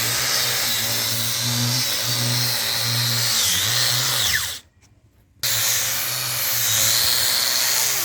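Electric wood polishing machine running with a steady motor hum and high whine. About four seconds in its pitch drops as it slows. The sound cuts out for under a second, then the machine runs again.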